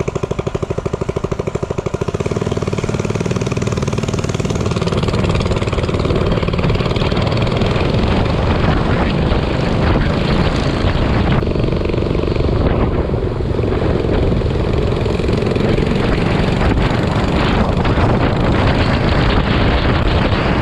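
Minibike engine running with an even putter for about two seconds, then pulling harder and running steadily as the bike rides along.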